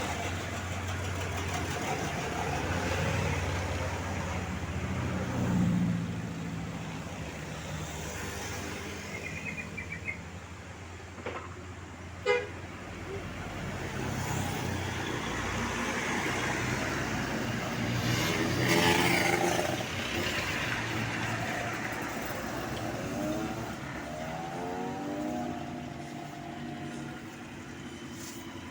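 Buses and traffic passing with a steady engine rumble, and a multi-tone telolet bus horn sounding short musical phrases at times, most clearly near the end. A sharp knock comes about twelve seconds in.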